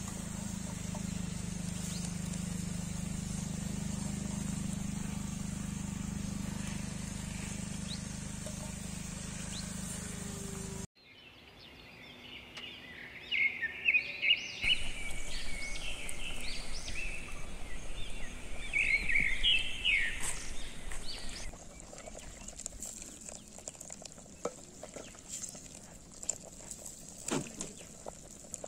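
Birds chirping rapidly in short, high notes for about ten seconds; this is the loudest sound. Before it, a steady low hum cuts off suddenly. After it come a few light clicks and knocks.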